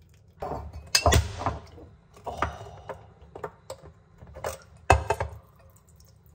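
Water poured from an electric kettle into a glass cup, with sharp knocks and clinks of the glass cup, a plastic canister and a ceramic mug on a kitchen counter; the loudest knocks come about a second in and again near five seconds in.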